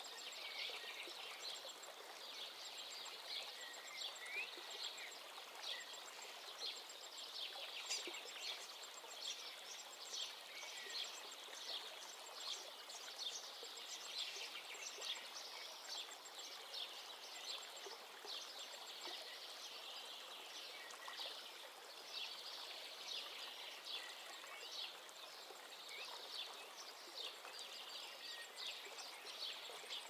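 Many small songbirds chirping and twittering in a dense, continuous chorus, over a soft, steady background rush.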